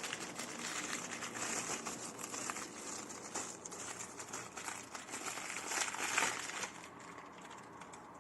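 Continuous rustling and crinkling handling noise, dying down about seven seconds in.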